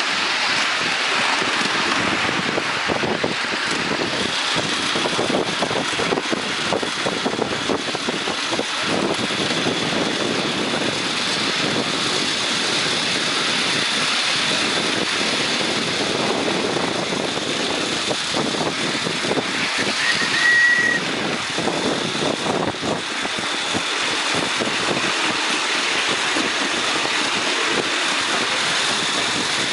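Miniature live-steam locomotive and its riding cars running on a raised track: a steady rumble and clatter of small wheels on the rails, with wind on the microphone. A brief high tone sounds about two-thirds of the way through.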